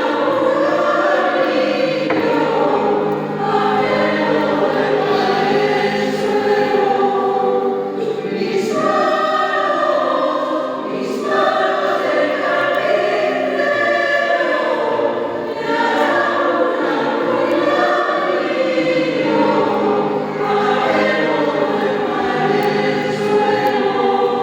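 Choir singing in sustained harmony, in phrases of a few seconds each with short breaks between them.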